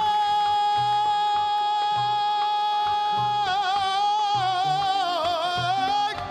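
An older man's singing voice holding one long, high note to close a Lebanese folk song, over the band's steady beat. The note is held straight at first, then shakes in a wide vibrato from about halfway and breaks off just before the end.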